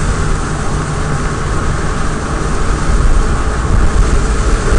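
Steady road noise inside a moving car on a wet road in the rain: tyres hissing on the wet pavement over a low engine and wind rumble, growing a little louder about three seconds in.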